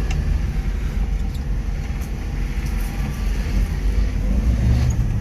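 Subaru Sambar 4WD mini truck driving slowly off-road in four-wheel drive: a steady low engine and drivetrain rumble with a few faint clicks.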